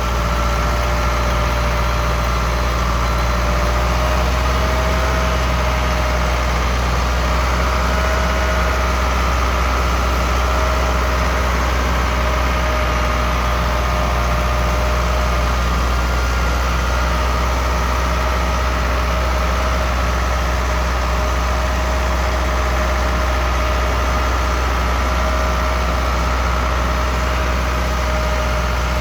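Ford 6610 tractor's diesel engine running steadily while pulling a John Deere 450E round baler through hay, with a steady whine over the low engine rumble.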